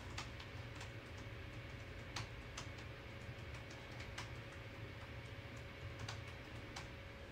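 Laptop keyboard being typed on: soft, irregular key clicks over a faint steady hum.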